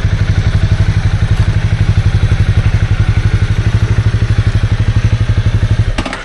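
Honda CB250R's single-cylinder four-stroke engine idling with an even, rapid pulse, then switched off just before the end.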